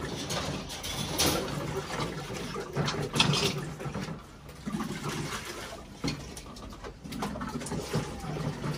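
Water sloshing and splashing in a plastic bucket as pigeon drinkers are dipped and filled, with pigeons cooing low several times.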